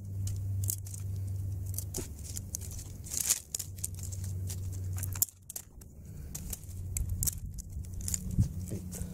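Ferro rod scraped hard with a knife, a series of short, sharp, uneven scrapes: sparks being struck into tinder to light a fire.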